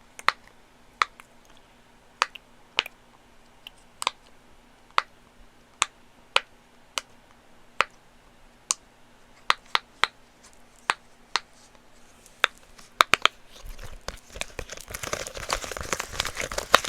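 Silicone Pop It fidget toy bubbles being pressed through one by one, a sharp single pop about every half second to a second. From near the end the pops give way to crinkly rustling handling noise.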